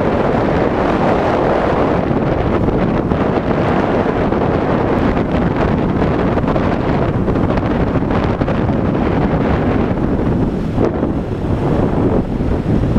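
Steady wind buffeting the microphone of a Yamaha Serow 225 trail bike on the move, with the bike's running noise mixed in. It dips briefly near the end.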